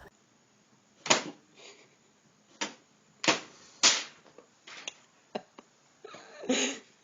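Several sharp taps or knocks at irregular intervals, about six in all, followed near the end by a brief scuffling noise.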